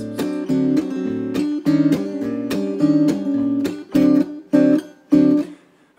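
Acoustic guitar strummed in a steady rhythm. In the second half it breaks into short, clipped strums with gaps between them, then stops briefly near the end.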